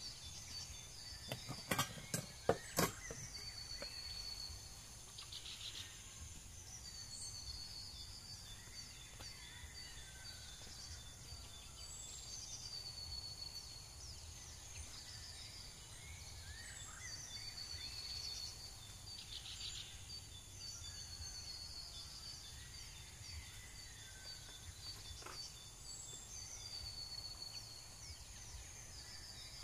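Countryside ambience: birds chirping and calling on and off over a steady high-pitched insect drone. A few sharp knocks come about two seconds in.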